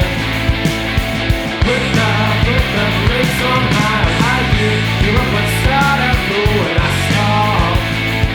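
Punk/alternative rock song: electric guitars over programmed drums, with a steady beat and a melodic line that bends in pitch from about two seconds in.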